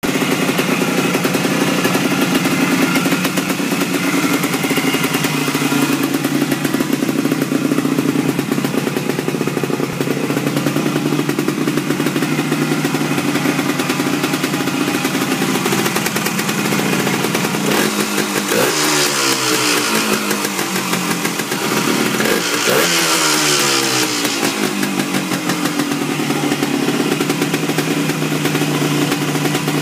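1974 Yamaha DT250 enduro's single-cylinder two-stroke engine running steadily. It is revved twice, about 18 and 22 seconds in, and each time the revs fall back. It has a brand-new top end and freshly set ignition timing.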